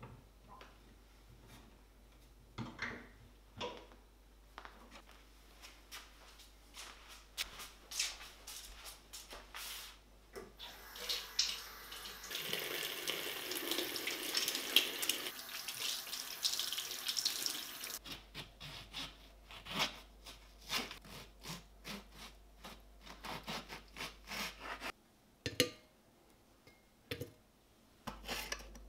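Kitchen tap running water over hands for about seven seconds, starting around the middle, with scattered small clicks and knocks of kitchen handling before and after.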